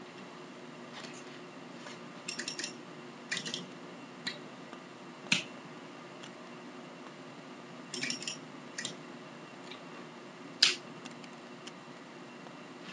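Zippo lighter clicking, its metal lid snapping open and shut several times in quick clusters and single clacks, with the loudest snap near the end.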